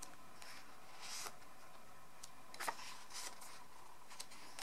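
Photobook pages being handled and turned by hand: a few faint paper rustles and soft clicks over quiet room tone.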